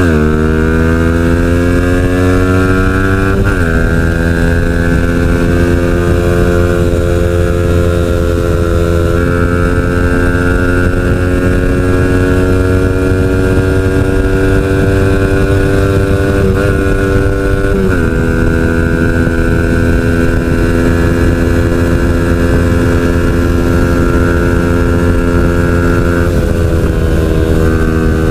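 Yamaha Y16ZR's single-cylinder engine, fitted with a Cardinals Racing ECU and exhaust, running hard under acceleration on a test ride. The engine note climbs slowly and drops with upshifts about three seconds in and again at about eighteen seconds. Wind rumbles on the microphone underneath.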